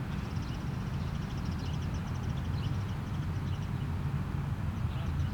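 Outdoor ambience: a steady low rumble, with a rapid high-pitched trill through the first three seconds.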